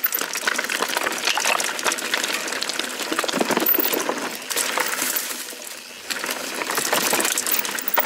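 Santa Cruz 5010 full-suspension mountain bike descending a rough, rocky section: tyres clattering over rocks and roots, with a continuous rattle of chain and frame. The clatter eases briefly about three-quarters of the way through, then picks up again.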